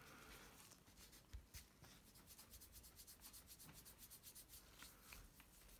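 Faint, quick, even strokes of nitrile-gloved fingers rubbing graphite powder into the glossy black paint of a resin 3D-printed part, working it to a metallic patina. A small knock about a second and a half in.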